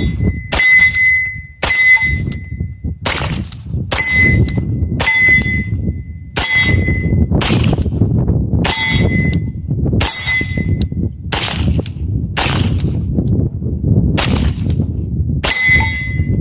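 Beretta M9A3 9 mm pistol firing about a dozen shots, spaced roughly a second apart, many followed by the ringing ding of a steel target being hit. Wind rumbles on the microphone underneath.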